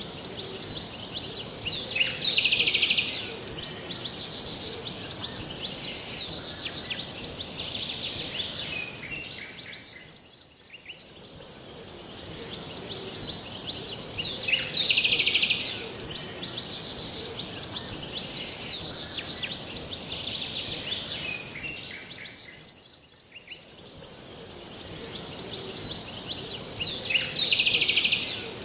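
Looped birdsong ambience: birds chirping over a steady high hiss. A louder buzzy trill comes back about every twelve seconds, as the same short stretch repeats.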